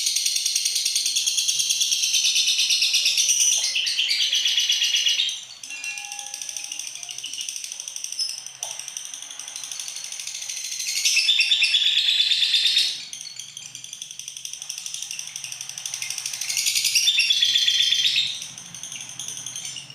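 Lovebird chattering in long, high-pitched rapid trills: a loud bout of about five seconds, then further loud bouts about eleven and seventeen seconds in, with softer chatter between.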